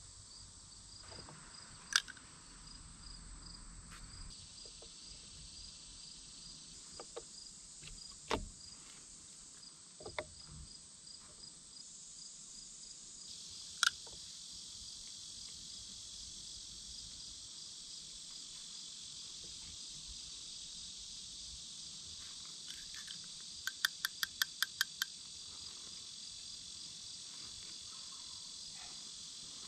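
Steady, high outdoor insect chorus with a regular pulsing chirp, broken by scattered sharp clicks and taps of PVC pipe fittings being handled, including a quick run of about seven clicks a little before the end.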